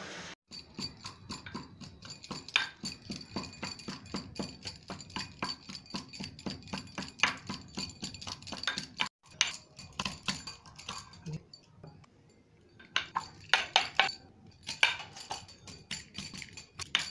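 Metal spoon clinking and scraping against a small steel bowl while spice paste is mixed, many quick clicks with a louder cluster about three-quarters of the way through. A voice and music sound underneath.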